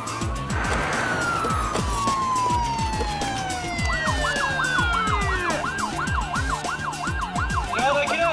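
Police siren: one long falling wail, then a fast warbling yelp from about four seconds in, about three cycles a second, over music with a steady low beat.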